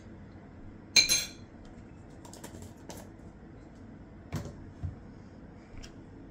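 Kitchen utensils knocking against a dish while garlic paste is added to a spice mix. A sharp clink about a second in rings briefly, followed by a few softer taps and knocks.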